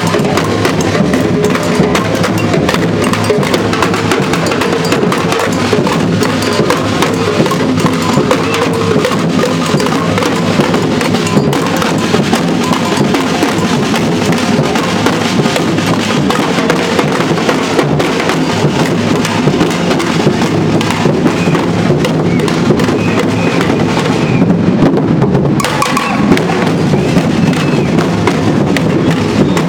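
Street drum band playing a loud, continuous rhythm on large bass drums and snare drums. About 24 seconds in, the high snare sound drops out for a second or so while the bass drums carry on, then comes back.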